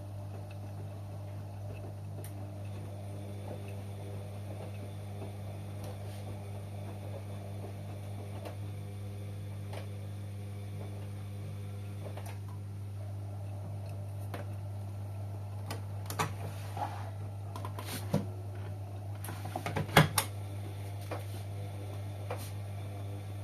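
Washing machine running with a steady low hum. A scatter of clicks and knocks comes about two-thirds of the way through, the loudest near the end.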